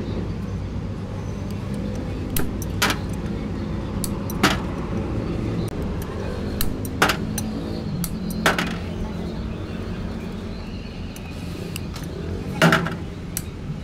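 A steady low mechanical drone, with scattered sharp clicks and knocks on top, the loudest near the end.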